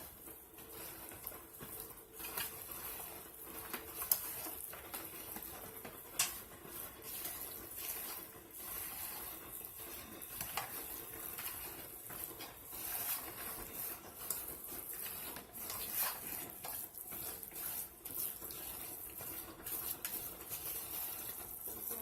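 Moist sausage cornbread dressing being stirred together in a mixing bowl: steady soft, wet mixing sounds with a few sharp clicks of the utensil against the bowl.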